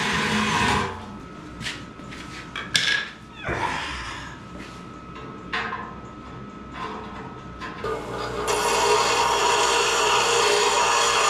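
Steel parts knocking and clanking as they are set in place, then, about three-quarters of the way in, a Millermatic 255 MIG welder starts a steady hiss as it tack-welds the steel.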